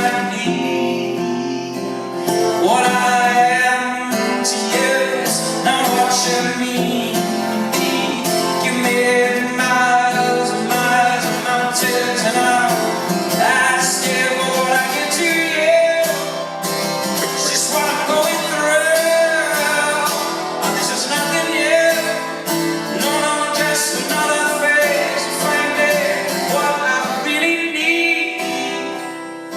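Live acoustic song: strummed acoustic guitar with singing in long held, bending notes.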